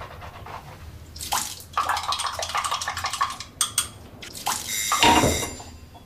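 Water running from a bathroom washbasin tap and being splashed onto the face from the basin. The heaviest splash comes about five seconds in, and the water stops just before the end.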